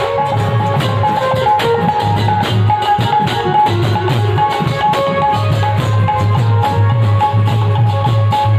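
Loud procession music: barrel drums (dhol) beating with a pulsing low thud under short, repeated high melody notes.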